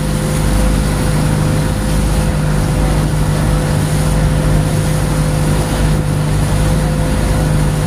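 Motorized outrigger boat (bangka) engine running steadily at cruising speed, a constant hum over the rush of water along the hull.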